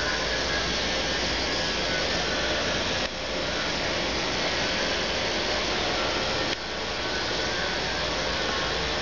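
Ford 655C backhoe loader's diesel engine running steadily, heard close up as a constant loud drone.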